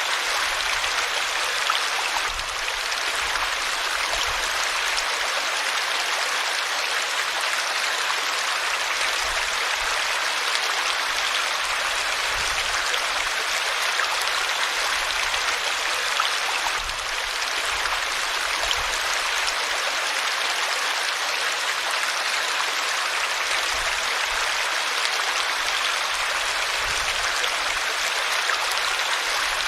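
River water flowing steadily, an even rushing noise with no breaks.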